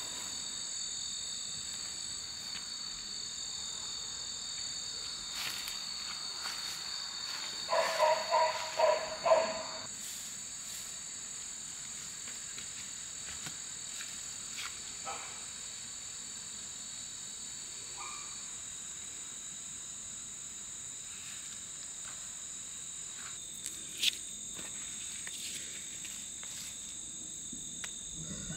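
Steady chorus of insects, several high-pitched drones sounding together, one of which stops about two-thirds of the way through. About eight seconds in, a bird calls five times in quick succession, the loudest sound here.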